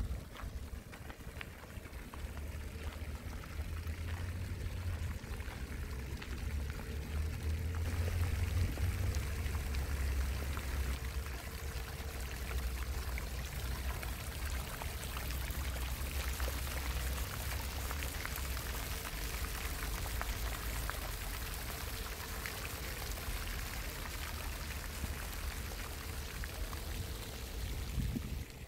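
Water from an in-ground jet fountain splashing onto paving, a steady hiss of spray that grows louder about eight seconds in, over a low rumble.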